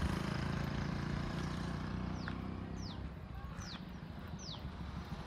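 A small bird repeating a short, high, sharply falling call several times, starting about two seconds in, over a steady low rumble.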